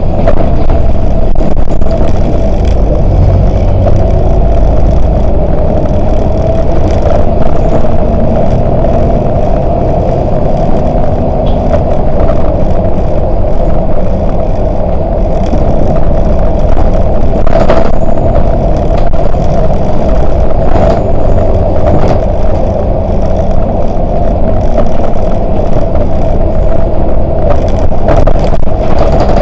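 Volvo 8900LE city bus under way: steady engine and road rumble with a constant mid-pitched whine, and a couple of light knocks.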